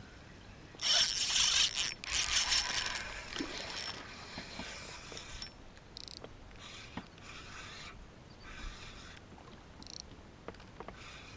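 Fishing reel being cranked, a whirring mechanical ratchet sound that comes in two loud stretches early on, then in shorter on-and-off bursts as line is wound in.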